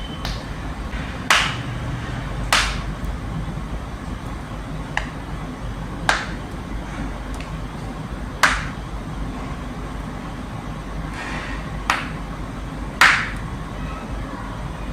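A person's joints cracking: about seven sharp single pops at irregular intervals, one to three seconds apart, over a steady low rumble.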